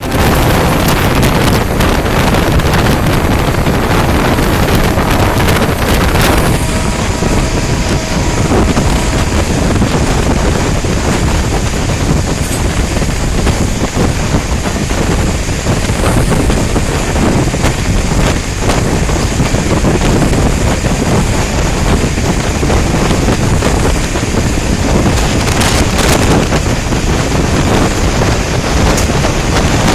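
Wind buffeting the microphone over the steady rumble of an Indian Railways superfast express train running at speed, heard from on board. A harsher hiss in the first six seconds or so cuts off suddenly.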